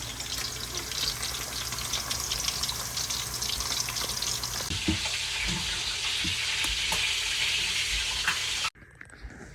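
Food shallow-frying in hot oil in a pan: a steady sizzle full of small crackles and pops, growing hissier about halfway through, then stopping abruptly near the end.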